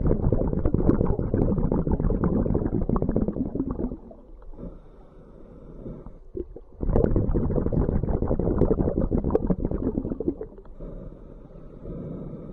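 Scuba diver breathing underwater through a regulator. Two long exhalations, each about four seconds, burst out as rushing, crackling bubbles. Quieter inhalations through the regulator fall between them.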